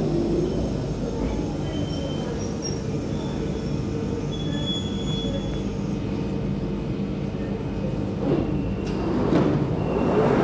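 Central line 1992-stock tube train braking to a stop at the platform: a steady motor and running hum with brief high wheel squeals. A louder rush near the end as it stands and the doors open.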